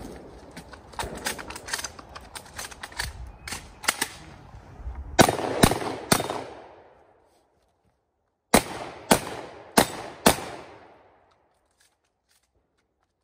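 Competition shotgun firing: a string of fainter shots through the first four seconds, then three loud blasts in quick succession about five seconds in and four more a few seconds later, each with a short echo.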